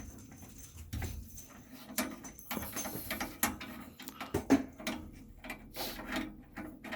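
Cap being unscrewed and handled on a tankless water heater's service valve port: a run of irregular small clicks and scrapes.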